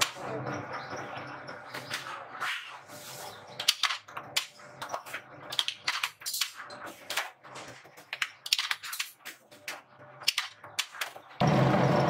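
Thin sheet-steel panels clattering as they are handled, a run of sharp, irregular clicks and clanks. Near the end a loud, steady hum of a flywheel-driven power press running comes in suddenly.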